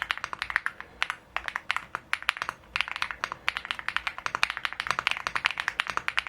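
Typing on a Feker Galaxy80 mechanical keyboard fitted with its stock keycaps: rapid, continuous keystroke clacks, several a second.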